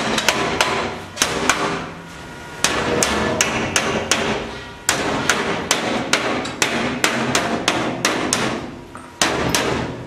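Hammer blows on the sheet-steel rim of a metal garbage container being straightened for repair, struck in quick runs of about three a second, each blow ringing briefly, with a short pause about two seconds in.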